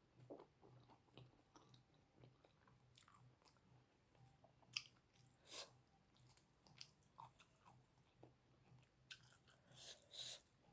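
Faint close-miked chewing with wet mouth clicks and lip smacks, a sharp click about five seconds in and a flurry of smacks near the end.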